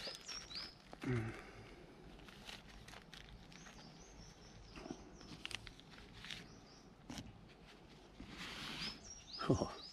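Small birds chirping in short repeated calls, over scattered rustling and clicking from handling and wiping things up by hand. A single short, lower, falling sound stands out near the end.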